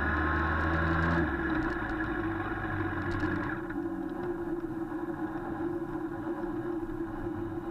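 Motorcycle engine running at low pit-lane speed, heard from a camera mounted on the bike. About a second in the low engine note drops as the throttle eases off, and the sound settles lower and steadier.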